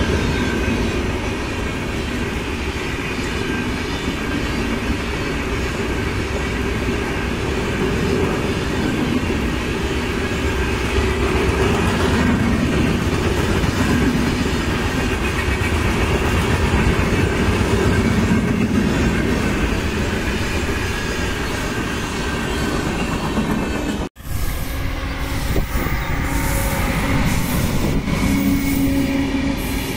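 Indian Railways passenger coaches passing close by, their wheels rumbling steadily on the rails. The sound cuts out for an instant about three quarters of the way through, then another train's passing carries on.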